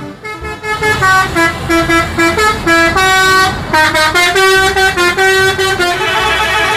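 A bus's musical multi-note air horn (a "telolet" horn) playing a quick tune, its pitch stepping up and down through short and held notes, with a brief break midway.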